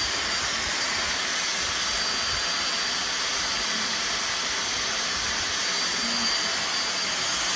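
Khind bagless vacuum cleaner running steadily at full power, a loud even rush of air with a thin high-pitched whine from the motor.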